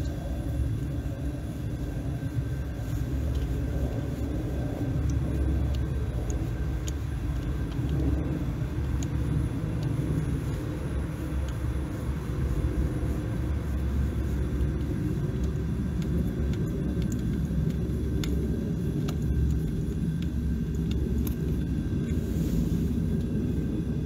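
Steady low rumble, with a few faint clicks of hand tools as the valve cover bolts are fitted and tightened.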